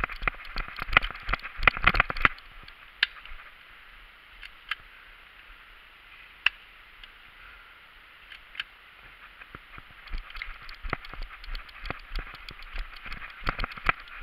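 Footsteps crunching through dry leaf litter and twigs on a woodland floor, in two bursts of rapid crackling at the start and from about ten seconds in, with a few single sharp snaps between.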